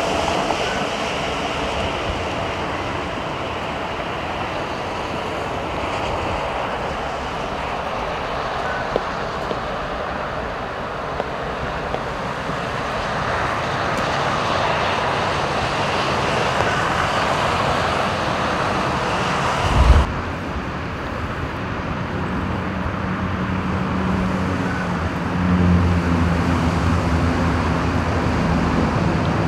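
Steady roar of freeway traffic on wet roads in the rain. About twenty seconds in there is a short thump at a cut, and near the end a low engine hum joins in.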